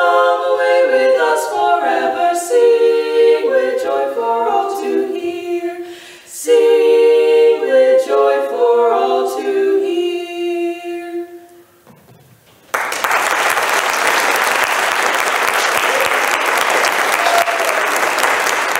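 Women's vocal trio singing in close harmony without audible accompaniment, finishing the song on a held chord that fades out about eleven seconds in. After a moment of quiet, the audience breaks into steady applause.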